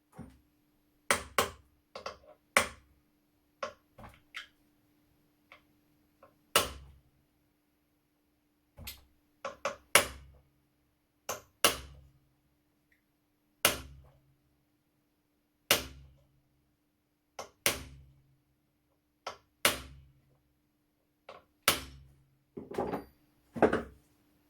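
Hammer tapping a punch to drive pins out of an old rusty shotgun: sharp metallic strikes every second or two, often in quick pairs, each with a short dull thud.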